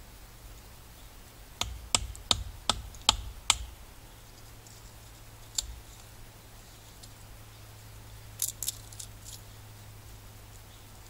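Small pieces of wood being split for kindling with a knife: six sharp wooden knocks in quick succession about two seconds in, a single one a couple of seconds later, and a short burst of three or four near the end.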